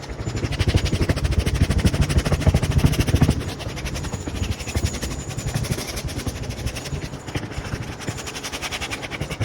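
Wire brush scrubbing crumbled old foam residue off a car headliner backboard: a fast, even run of scratching strokes, loudest in the first three seconds.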